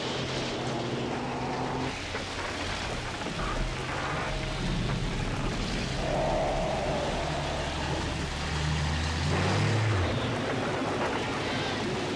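Engine of a GMC M211 army cargo truck running slowly under load in pouring rain, its note rising about nine seconds in and then dropping away, over a steady hiss of rain.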